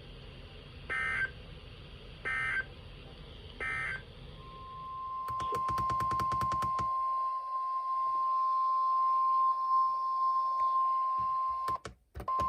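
Three short bursts of EAS digital data, each about a third of a second and roughly 1.4 s apart: the end-of-message code that closes a NOAA Weather Radio broadcast. About four seconds in, the steady 1050 Hz NOAA Weather Radio warning alarm tone starts and holds for about seven seconds, then cuts off.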